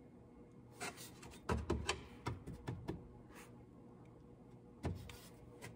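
A hand touching and tapping the plastic piece on a truck's fuel tank: a few faint, scattered taps and knocks.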